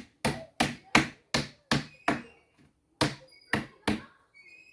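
Hammer striking wooden wedges driven into the gaps between a wooden pallet's boards, prising a board away from its nails: a steady run of sharp knocks about three a second, a short pause about two seconds in, then more knocks.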